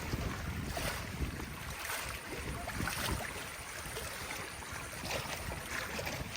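Wind rumbling on the microphone over choppy lake water lapping, with a few faint splashes.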